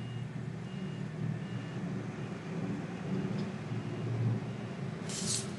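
Steady low rumble of background room noise, with a short hiss near the end.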